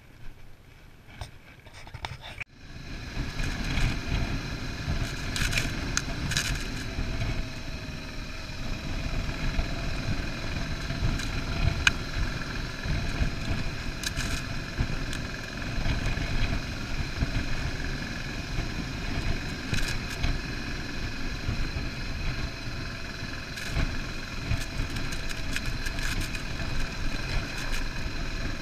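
Single-cylinder 650 dual-sport motorcycle riding along a sandy dirt track, its engine running steadily under way with track noise. There are a few sharp clicks or knocks. The first couple of seconds are quieter before it starts abruptly.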